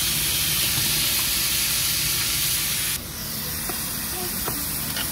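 Cabbage and meat stir-frying in a wok over high heat: a loud, steady hiss. About three seconds in it drops to a quieter sizzle as the food steams on a hot iron serving plate.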